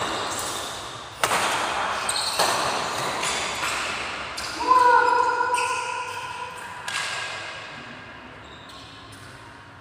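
Badminton rally in an echoing hall: sharp racket strikes on the shuttlecock about every one to two seconds, each ringing on in the room. About five seconds in, a drawn-out shout rises over the play. The strikes stop around seven seconds in as the rally ends.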